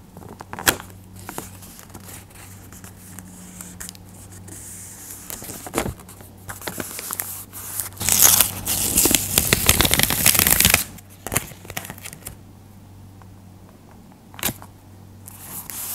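Paper and tape being handled: scattered small crinkles and taps, then about halfway through a few seconds of louder peeling and rustling as an adhesive backing strip is pulled off a laminated paper phone case, before the case is pressed down.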